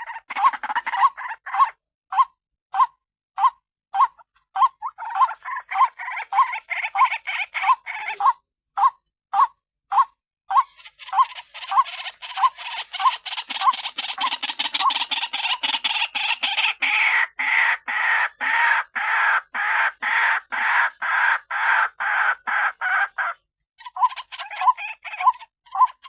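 White-breasted waterhen calling: a steady run of short 'ruak' notes about twice a second. For about twelve seconds in the middle these are joined by a harsher, denser chattering, which stops abruptly before the regular notes run on alone near the end.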